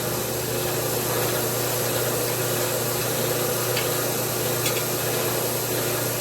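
Forge blower running: a steady rushing noise with a low hum and no hammer blows.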